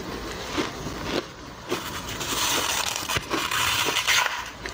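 Crushed ice crunching up close: a few separate sharp cracks in the first couple of seconds, then a dense run of crunching from about two seconds in.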